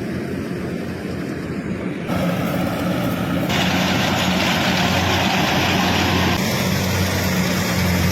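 An engine running steadily with a low, even hum. The hiss over it changes level abruptly a few times.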